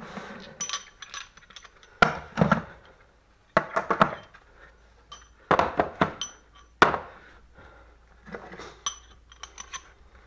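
Metal hand tools clinking: steel sockets and wrenches being picked up and set down in a socket set's plastic case, a series of sharp knocks with short metallic ringing.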